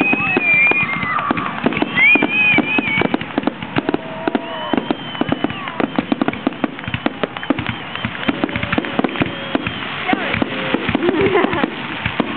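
Fireworks grand finale: a dense, rapid barrage of bangs and crackles, many per second, without a break.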